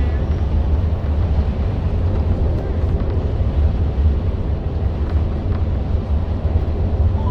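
Steady low drone of a bus engine and road noise, heard from inside the moving bus.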